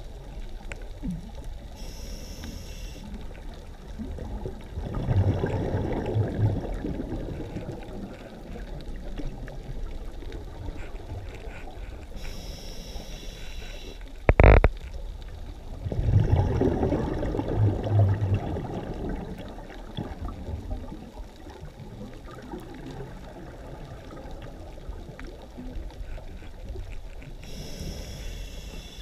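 Scuba diver breathing through a regulator, heard through an underwater camera housing: short hissing inhalations, each followed a few seconds later by a longer bubbling rumble of exhaled bubbles, in slow cycles. A single sharp knock about halfway through is the loudest sound.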